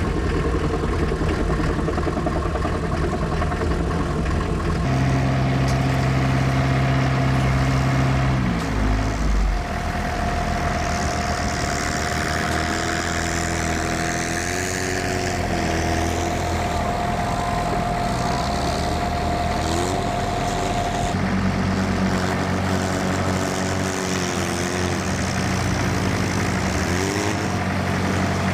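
PistenBully snowcat's 2.4-litre Mercedes diesel engine running while the machine pushes snow with its front blade. The engine note shifts abruptly a few times, and a steady whine sits over it through the middle.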